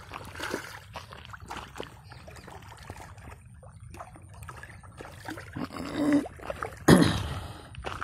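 Small irregular splashes and trickling of water as murrel fish stir at the pond surface, with one loud splash about seven seconds in.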